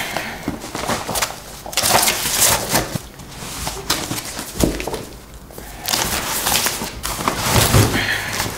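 Papers, folders and books being crammed into a fabric shoulder bag: continuous rustling, shuffling and scraping of paper and bag fabric, with a dull knock about four and a half seconds in.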